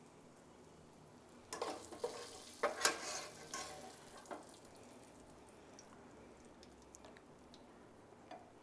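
Metal spoon scraping and clinking against a glass dish as fried cashews, raisins and melon seeds are spooned onto beetroot halwa. A cluster of short, faint scrapes comes in the first few seconds, then only a few soft ticks.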